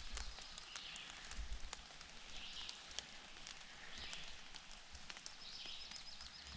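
Quiet outdoor ambience: a bird gives a short high call about every second and a half, with scattered faint clicks and crackles and a quick run of ticks near the end.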